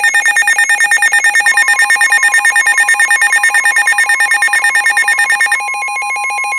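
Several NOAA weather radios sounding their alert alarms together for a Severe Thunderstorm Warning, a loud rapid beeping at about eight beeps a second. The broadcast's steady 1050 Hz warning alarm tone comes in underneath about a second and a half in, and most of the beeping stops about five and a half seconds in, leaving that steady tone with fainter beeping.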